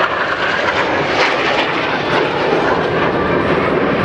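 Loud, steady jet noise of two Blue Angels F/A-18 Hornets flying a low opposing pass after their inverted-to-inverted rolls.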